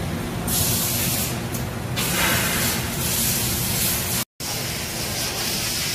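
Doosan DB130CX CNC horizontal boring mill running: a steady low machine hum under a hiss that swells and fades in the first couple of seconds. The sound drops out for a split second about four seconds in.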